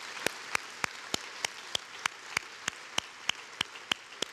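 Audience applause, fading gradually, with one person's steady hand claps close to the microphone standing out at about three a second.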